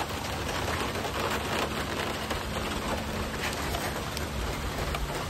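Rain falling, a steady even hiss with scattered faint drop taps.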